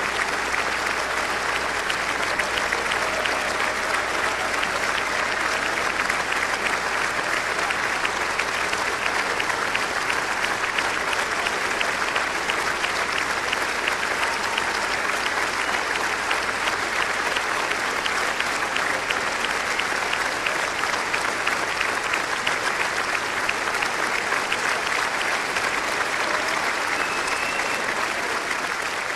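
A large audience applauding steadily in a long, unbroken ovation.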